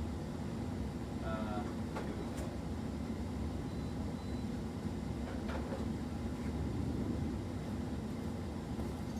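Steady low hum and rumble of background noise, with a few faint clicks and knocks.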